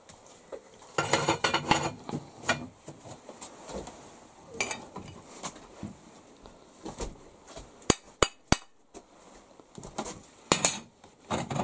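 Intermittent clatter and scraping from work on a brick wood stove with a cast-iron cooktop, with three sharp metallic clinks in quick succession about eight seconds in.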